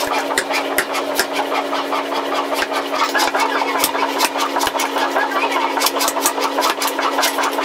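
Motor-driven power hammer pounding a red-hot steel hammer-head blank on the anvil, with rapid repeated blows, several a second, over a steady motor hum. Partway through, the ram drives a punch into the hot blank.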